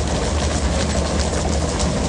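Fishing boat's engine running steadily with a low rumble, under a constant hiss of water, with scattered light knocks and clicks.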